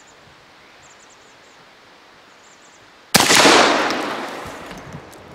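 A single shot from an AK-style 12-gauge shotgun firing a Ball and Chain bolo shell, about three seconds in, its echo fading away over about two seconds. Faint bird chirps before the shot.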